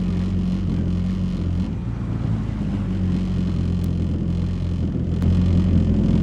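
Yamaha WaveRunner personal watercraft engine running at a steady low no-wake cruise, a constant low drone that gets a little louder near the end.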